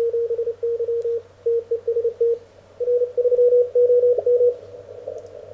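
Morse code (CW) signals received on an Elecraft K1 transceiver: a single mid-pitched beep keyed on and off in dots and dashes, breaking off briefly a little before halfway and fainter near the end.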